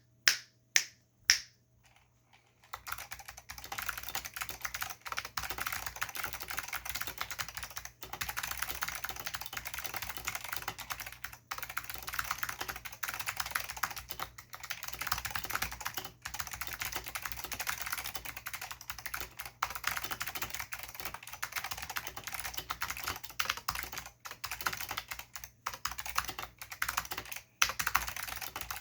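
Typing on a custom Filco Zero mechanical keyboard with lubed Alps SKCM White clicky switches and Alps doubleshot keycaps. A few separate key presses at the start, a short pause, then a fast, steady stream of keystrokes from about three seconds in.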